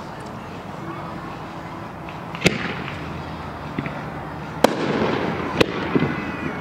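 Aerial fireworks bursting overhead: three sharp bangs, the first about two and a half seconds in and the next two about a second apart near the end, each trailing off in an echo, with lighter crackles between.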